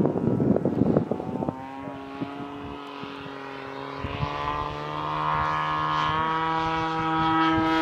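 DLE 40cc boxer-twin gasoline engine of a large RC Extra 300 in flight, its stock barrel mufflers fitted with silencers: a steady droning engine note with a clear pitch, lower and milder than the high-pitched stock-muffler sound and close to a full-size aircraft engine. It grows louder about four seconds in. Rough noise covers it for the first second and a half.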